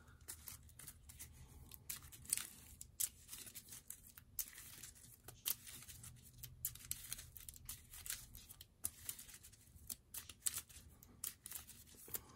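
Board-game cards being handled on a tabletop: faint, irregular clicks, taps and papery slides as cards are drawn and set down.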